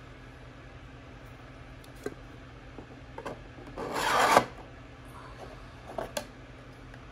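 A white 3D-printed panel sliding down into the grooves of a black 3D-printed lamp frame: one scraping rub of plastic on plastic, about half a second long, growing louder and stopping abruptly about four seconds in. A few light plastic clicks and taps come before and after it.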